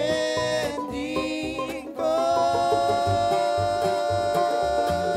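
A bluegrass string band playing live, with mandolin and banjo under sung vocals. About two seconds in, the singer holds one long note.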